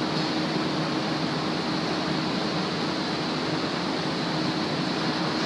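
Steady industrial noise of a galvanizing shop floor: an even, continuous hiss with a faint steady hum underneath.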